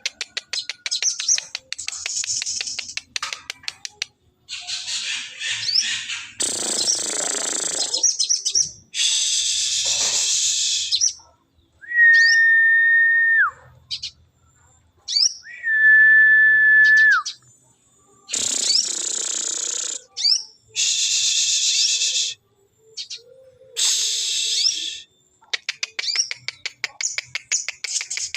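Sogon songbird calls played as a lure track: fast ticking chatters and harsh rasping bursts, with two long, steady whistled notes that each drop away at the end.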